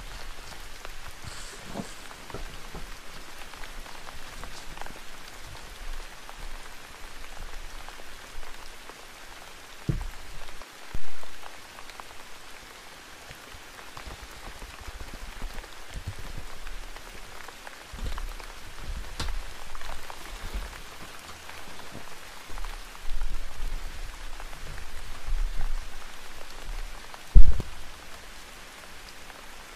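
Steady rain falling, with scattered soft knocks as paper pieces are handled and two louder thumps, one about eleven seconds in and a stronger one near the end.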